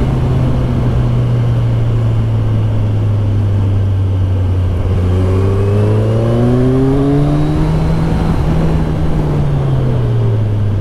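Kawasaki Z1000SX's inline-four engine running under way, with wind noise over it. The engine note holds steady, climbs as the bike accelerates from about halfway through, and eases off again near the end.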